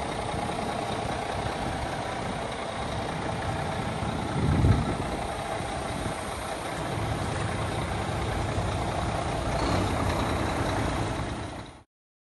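Scania R400 truck's straight-six diesel engine idling steadily, with a brief louder low rumble about four and a half seconds in. The sound cuts off abruptly just before the end.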